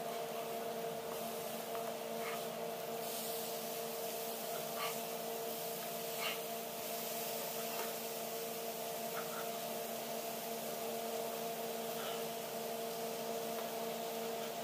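Fish steaks frying in a shallow film of oil on a nonstick tawa: a steady sizzle, with a few light clicks as a spatula touches the pan and turns the pieces. A steady hum runs underneath.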